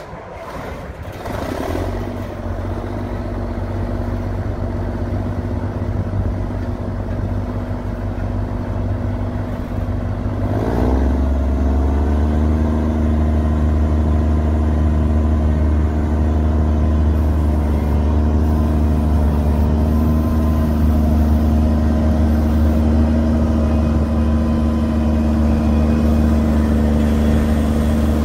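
2003 Gleaner R75 combine's diesel engine starting up about a second in and settling to a steady run. About ten seconds in its note rises and it grows louder, then it holds that higher speed.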